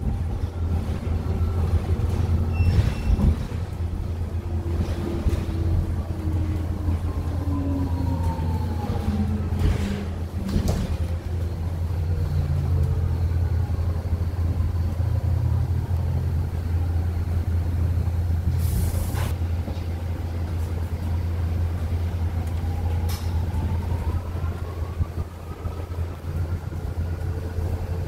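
BYD K9 battery-electric bus driving: its electric drive whine falls in pitch as it slows, then rises again as it pulls away near the end, over a steady low hum. A short hiss of air comes about two-thirds of the way through.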